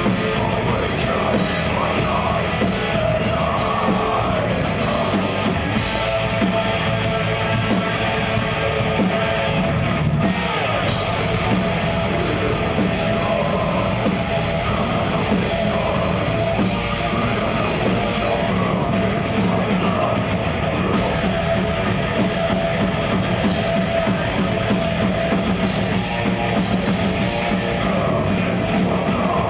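Live death metal band playing: distorted electric guitars and a drum kit, dense and continuous.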